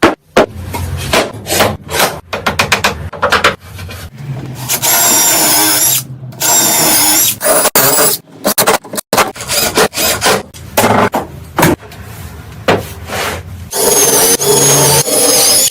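Woodworking tool sounds: a quick run of knocks and taps on wood, then a power tool running against wood in several bursts of a second or so, with a wavering high whine.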